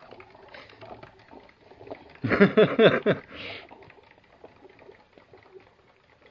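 Degus rustling and pattering about with small scratchy clicks. About two seconds in comes a loud voice-like call lasting about a second, followed by a short hiss.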